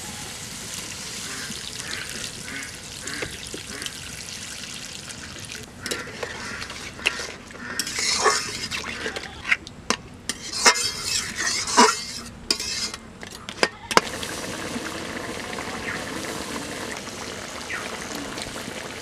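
Crab pieces frying in masala in a wok, sizzling steadily. From about six seconds in, a metal spatula knocks and scrapes against the wok several times, with bursts of loud sizzle as water goes into the hot pan and the crab is stirred. After that the curry gravy bubbles with a steady hiss.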